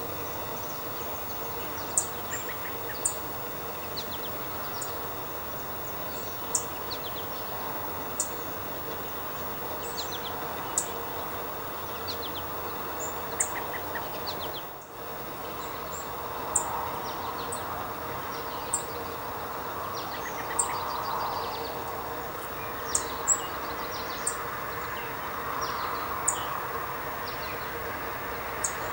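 Songbirds calling: sharp, very high single chip notes every second or two, with occasional short trills, over a steady background hum.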